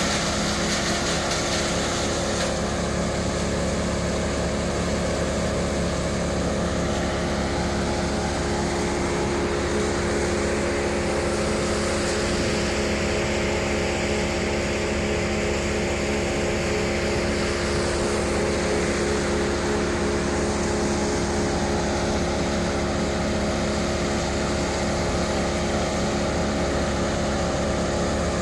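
The engine of a tree crew's machinery running steadily at a constant speed, a loud even drone with a fixed pitch that does not rev up or down.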